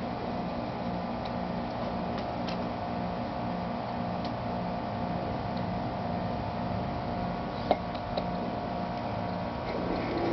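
Gauge-one garden-railway train running on its track, heard from a car riding in the train: a steady mechanical hum with an even pulse about twice a second and a few light clicks.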